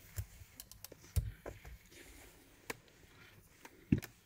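Small handling clicks and knocks: a digital multimeter's buttons being pressed and test probes and a circuit board being moved on a silicone work mat. The loudest knocks come about a second in and again near the end.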